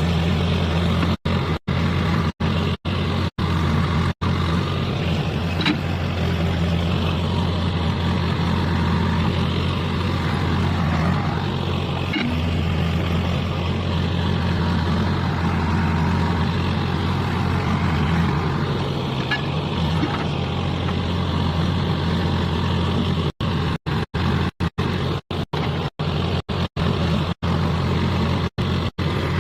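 Heavy diesel engine running steadily with a deep, even hum, as machinery loads a tractor trolley. The sound cuts out to silence for split seconds several times near the start and again near the end.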